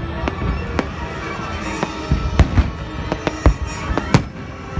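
Fireworks bursting in a rapid, irregular string of sharp bangs, the loudest about four seconds in, with music playing underneath.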